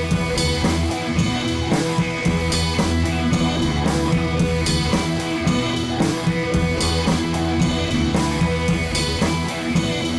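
Background rock music with guitar and drums and a steady beat.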